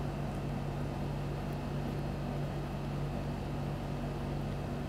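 Steady low electrical or fan-like hum with faint hiss: the constant background noise of the recording, with no other sound.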